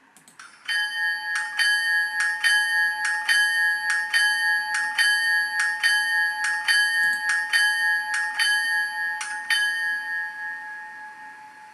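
An ESU LokSound Select sound decoder plays a diesel locomotive bell through an HO-scale model locomotive's speaker, switched on with the F1 bell function. It rings evenly at a little over two strokes a second, about twenty strokes in all, then stops striking near the end and rings out.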